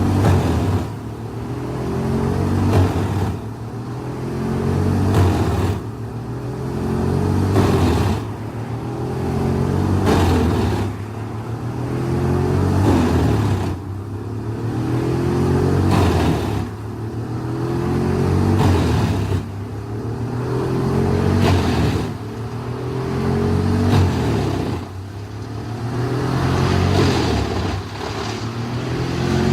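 Large wood chipper working under load, its engine and chipping drum running with a pitched drone. The sound swells and drops back again and again, roughly every two to three seconds.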